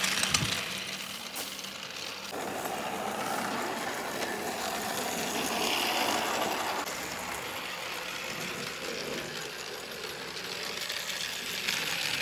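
Toy steam locomotive and its cars running on the track, a steady mechanical rattle of motor and wheels, with a couple of knocks in the first second or two.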